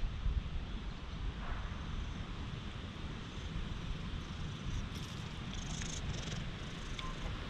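A cat purring steadily, a low continuous rumble.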